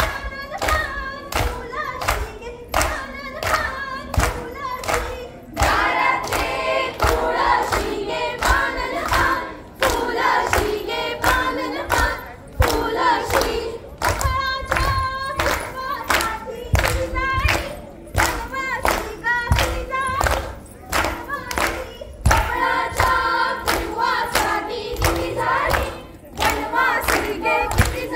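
Women singing a fugdi song together in chorus, with sharp hand claps and stamping feet keeping a fast steady beat of about two or three strikes a second.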